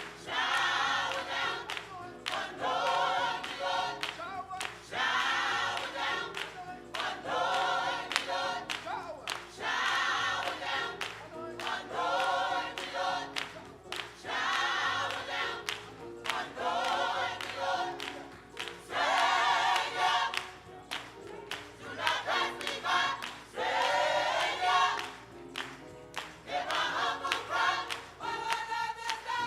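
Gospel choir singing in short repeated phrases, roughly one every two seconds, with brief pauses between them.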